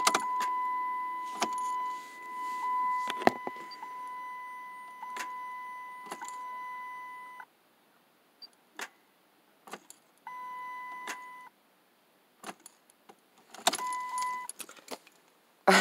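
A 2005 Chrysler 300 with the 2.7 L V6 failing to start: each turn of the key gives a sharp single click and the engine does not crank, about a dozen clicks at uneven intervals. A steady electronic dashboard warning tone sounds for the first seven seconds or so, then twice more briefly near the middle and near the end.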